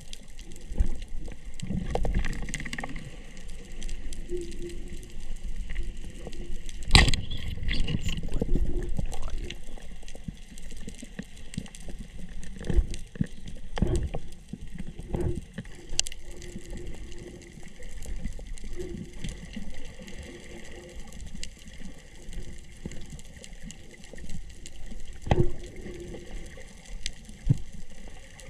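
Underwater sound heard through a submerged camera during a breath-hold dive: a steady low rush of moving water with scattered sharp clicks and knocks, one loud knock about a quarter of the way in.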